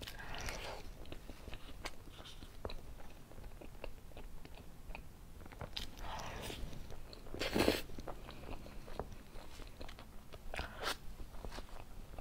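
Close-up eating sounds of a person chewing spoonfuls of soft cream cake: wet mouth clicks and smacks throughout. There are louder, noisier spells near the start, around six to eight seconds in with the loudest about seven and a half seconds in, and again about ten and a half seconds in.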